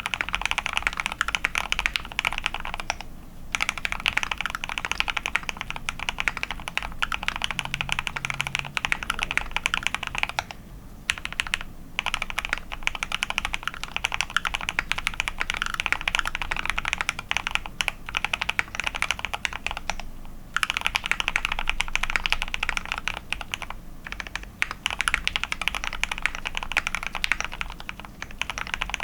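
Fast, continuous typing on a KBDfans Tofu65 mechanical keyboard with lubed Gateron Oil King linear switches, a polycarbonate plate and XDA keycaps. There are short breaks now and then, the longest lasting about a second near the middle.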